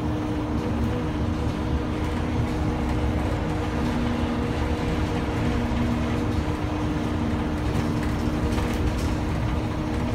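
Airport rental-car shuttle bus heard from inside while driving: the engine and drivetrain give a steady hum over low road rumble.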